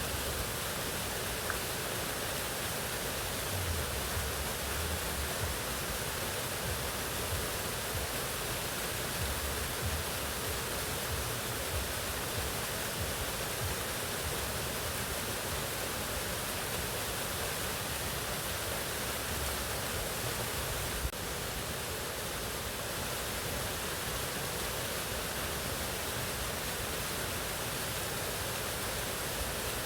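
Mountain waterfall: a steady, even rush of falling water.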